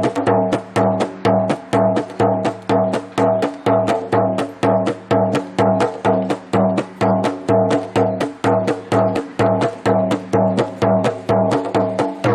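Bajo, the lowest of the three plena panderos (hand-held frame drums), played alone in a steady plena rhythm, about three to four strokes a second. Each stroke rings with a deep, pitched tone. The playing stops at the very end.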